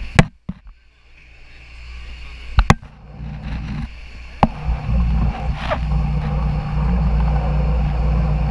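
Speedboat engine running, dropping low just after the start and then picking up into a steady low drone that holds over the second half. A few sharp knocks come in the first few seconds.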